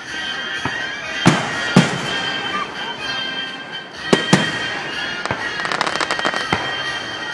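Fireworks display: aerial shells bursting with sharp bangs, two close together about a second in and two more about four seconds in, then a rapid crackle of many small pops about six seconds in.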